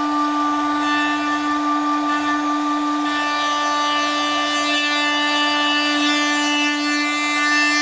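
1.5 kW air-cooled CNC router spindle running at a steady, constant-pitched whine while a spoilboard surfacing bit skims a shallow pass across plywood, with the hiss of the cut underneath. It is a tramming test pass to check that the spindle is square to the table.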